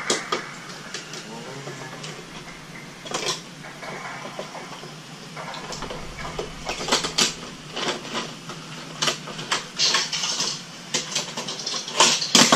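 Irregular clicks, taps and rustles of handling, sparse at first and growing denser about halfway through, over a faint steady hum.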